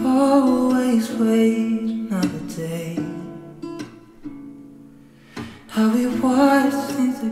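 Background music: a soft acoustic guitar song with a sung melody. It fades quieter about halfway through, then picks up again about two seconds later.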